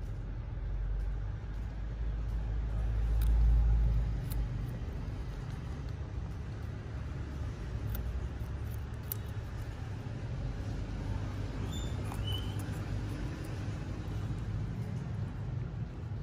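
Guinea pigs chewing raw carrot and pepper, with a few crisp crunching clicks, over a steady low rumble that swells about three seconds in. A short high squeak near the end.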